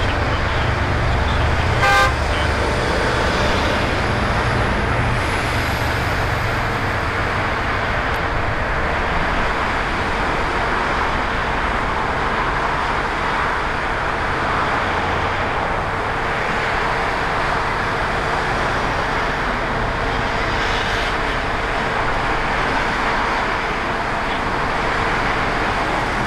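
Steady road traffic noise from passing vehicles. A short horn toot comes about two seconds in, and a deep engine rumble is heard for the first two seconds.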